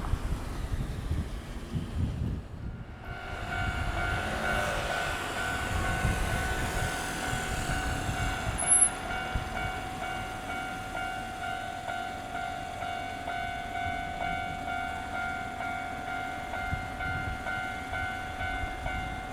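Railway level-crossing warning bell on the Hankyu Senri Line: a steady, evenly repeating electronic ding that starts about three seconds in, over the low rumble of a train.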